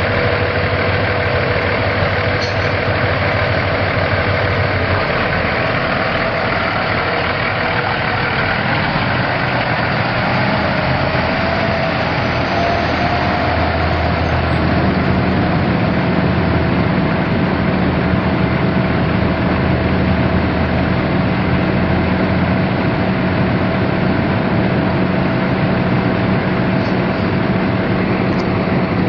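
Cummins ISX 14.9-litre inline-six turbo diesel in a semi truck, idling steadily. Its tone shifts slightly about halfway through.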